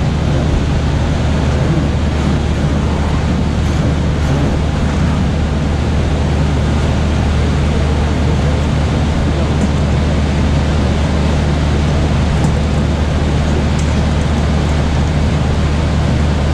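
A carnival cart's Power Electrics generator engine running steadily under load, a constant low hum with a noisy rush over it.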